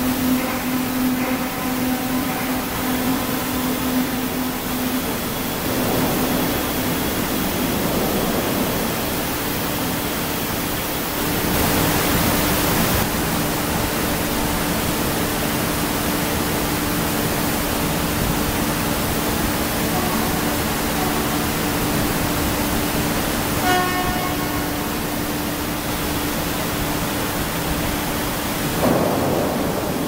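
Steady industrial din of a steel plant's billet casting line and cooling bed: a constant low hum under a broad hiss of machinery. A louder hiss swells for a second or two about twelve seconds in, and a short beep-like signal sounds about two-thirds of the way through.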